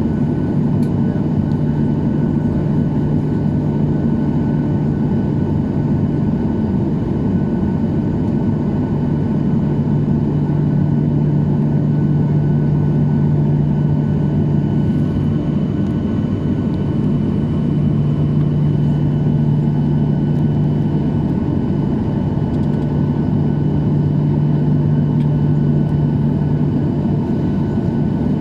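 Steady cabin noise inside a Boeing 737-800: a constant rush with a steady low hum that holds unchanged throughout.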